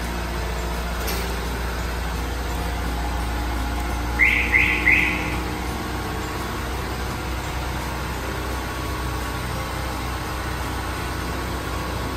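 Honda Amaze diesel engine running steadily with the accelerator held up, just after an engine decarbonisation treatment. About four seconds in, three quick high chirps from a bird cut across it.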